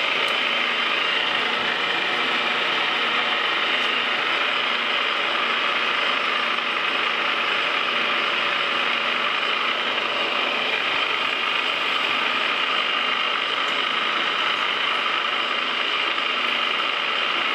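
Metal lathe running with its gear train and lead screw engaged while the threading tool takes a light pass cutting a left-hand modified square thread. A steady mechanical whir and gear noise with no change through the pass.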